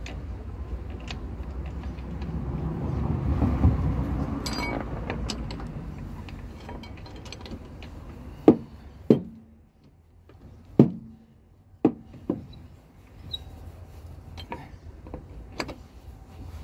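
Steel wheel bolts and a lug wrench clinking against each other and the hub as a spare wheel is bolted onto a car: about half a dozen sharp metallic clinks, each with a short ring, in the second half. Before them a low rumble swells and fades.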